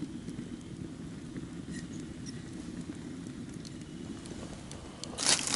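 Water at a rolling boil in a stainless steel camp kettle over a campfire: a steady low bubbling with a few faint ticks. About five seconds in, a sudden loud metallic clatter.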